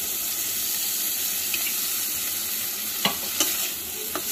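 Chopped vegetables sizzling in a hot stainless-steel kadai over a fairly high flame as dark soy sauce is poured in. A spatula clicks against the pan a few times in the last second or so as the stirring starts.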